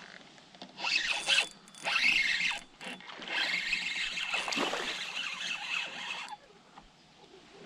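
Fishing reel cranking in line with a rasping, zipper-like whir: two short spurts, then a longer steady retrieve of about three seconds.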